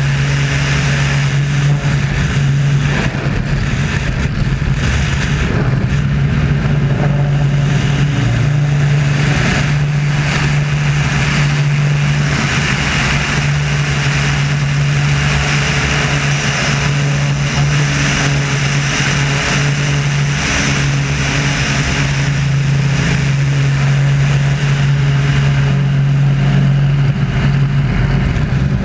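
Wolf Pitts Pro aerobatic biplane's piston engine and propeller running at power through aerobatic manoeuvres, a steady drone that dips and shifts slightly in pitch now and then. Air rushes over the camera mounted outside the aircraft.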